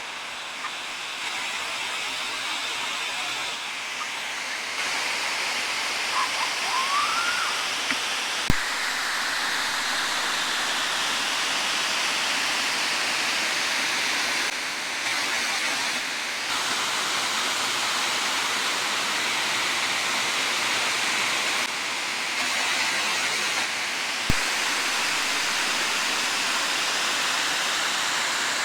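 Waterfall pouring into a plunge pool: a steady rush of falling water that gets louder about five seconds in. Two short sharp knocks sound through it, one about eight seconds in and one about twenty-four seconds in.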